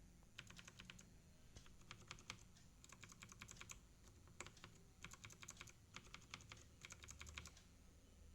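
Faint typing on a TVS Gold mechanical keyboard: quick runs of clicky keystrokes with short pauses between them.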